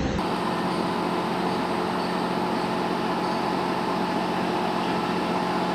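Heavy equipment engine running steadily at one even pitch, a constant mechanical drone.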